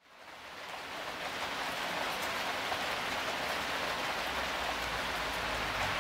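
Steady rain falling, fading in over the first second and then holding an even hiss.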